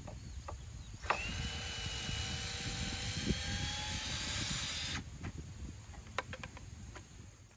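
Cordless drill driving screws into a pressure-treated 2x6 board, its motor running for about four seconds from about a second in and then stopping. Short clicks and knocks of handling the drill and wood come before and after.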